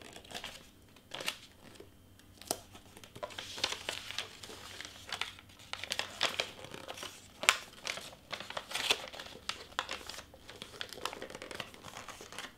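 Wrapping paper crinkling and rustling as it is folded and pressed around a small box, in a run of irregular crackles.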